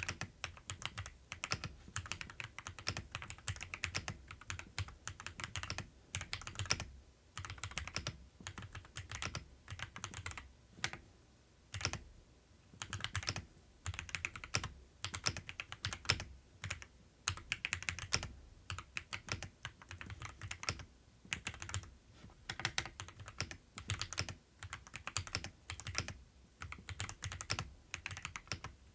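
Typing on an Akko 5075S mechanical keyboard with Ajazz Diced Fruit Peach switches: fast runs of keystroke clacks in bursts, with short pauses between them.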